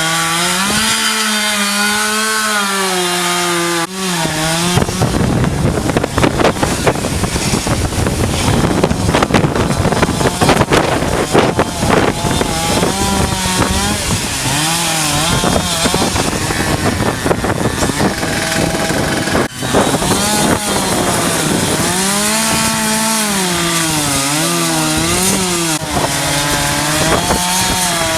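Two-stroke chainsaw running at high revs, its pitch rising and falling. About five seconds in it bogs into a loud, rough cut through wood for roughly ten seconds, then goes back to revving unloaded.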